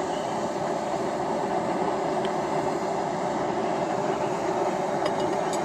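Gas forge burner running with a steady rushing noise, its gas pressure turned down a little.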